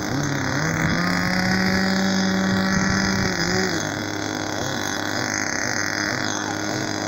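Small model-airplane engine running, its pitch rising about half a second in, holding steady, then dropping back just before four seconds, over a second steady, higher engine tone.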